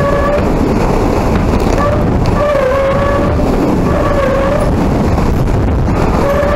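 Hurricane winds blowing hard, a loud, steady rush of noise with a wavering whistling howl that rises and fades every second or two.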